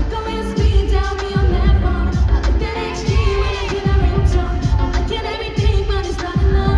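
Live pop concert music: singing over a heavy beat with deep, repeated bass thumps.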